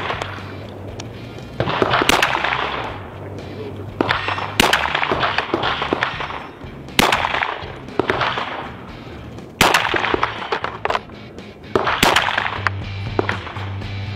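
Five aimed 9mm pistol shots from a Glock in a CAA Micro Conversion Kit chassis, fired slowly about one every two and a half seconds, each sharp crack trailed by about a second of echo, with music underneath.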